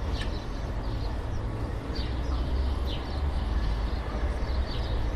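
City ambience: a steady low rumble of traffic, with birds chirping over it every second or so.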